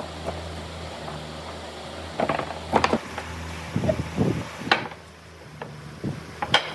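Woodworking knocks and taps, several sharp ones in irregular succession, over a steady low hum.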